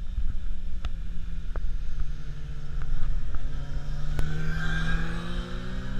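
Sport motorcycle engine running at a steady note, then rising in pitch from about four seconds in as the bike accelerates out of a bend.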